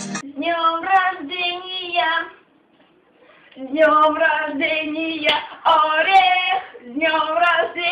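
A young woman singing unaccompanied in short phrases, with a break of about a second partway through.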